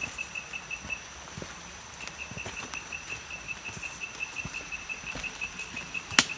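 An insect calling in a steady pulsed chirp, about six or seven pulses a second, breaking off for a second and then resuming, with a faint steady high whine above it. Footsteps on a muddy forest trail underneath, and one sharp snap near the end.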